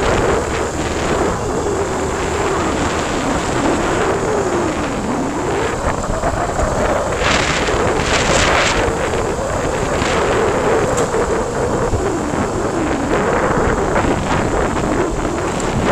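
Motorcycle engine running while riding, its pitch rising and falling with speed, under heavy wind buffeting on the microphone.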